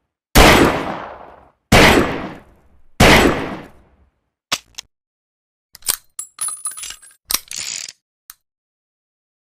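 Saturday night special revolver fired three times, about a second and a half apart, each shot trailing off with a long echo. Then two light clicks and a run of metallic clicks and ringing clinks as the revolver is handled.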